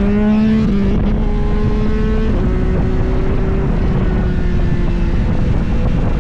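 Motorcycle engine running hard under way, its note stepping down sharply twice, about one and two and a half seconds in, then easing lower, with wind rushing over the microphone.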